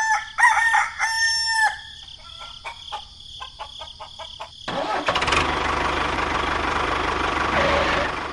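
A rooster crows, followed by a run of clicks that fade out, then a small engine starts and runs steadily.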